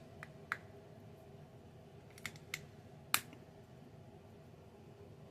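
Plastic Lego pieces clicking as they are handled and pressed together: a handful of sharp clicks in the first three seconds, the loudest about three seconds in.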